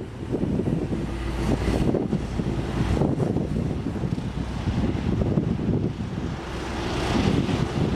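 Wind buffeting the microphone over a low rumble of jet airliner engines, the level rising and falling with the gusts.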